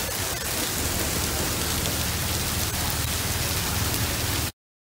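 Hail mixed with heavy rain pelting wet pavement: a dense, steady hiss with scattered small ticks. It cuts off suddenly near the end.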